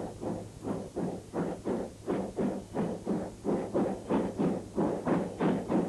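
Exhaust beats of a J27 0-6-0 steam locomotive hauling a freight train: an even rhythm of chuffs at about four a second, over a steady low hum.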